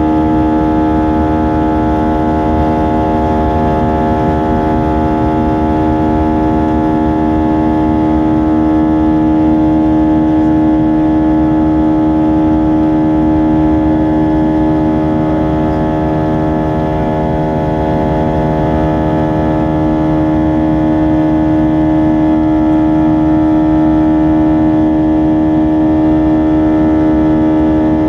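Airbus A320 cabin noise in flight: the jet engines' loud, steady drone heard inside the cabin, a strong hum with several steady tones over a rushing noise.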